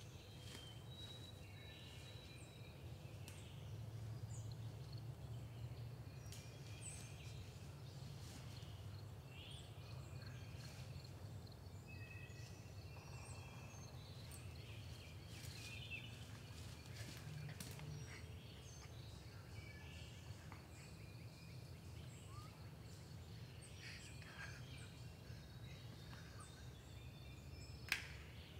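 Quiet woodland ambience: scattered short songbird chirps and calls over a low steady rumble, with one sharp click near the end.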